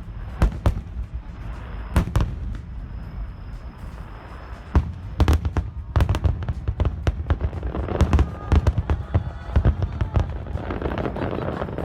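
Aerial fireworks shells bursting in a display, a run of sharp booms that comes faster and thicker from about eight seconds in.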